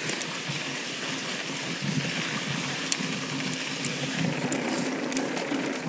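Mountain bike tyres rolling fast over loose, dusty dirt, a steady gritty rushing noise, with a few sharp clicks from the bike.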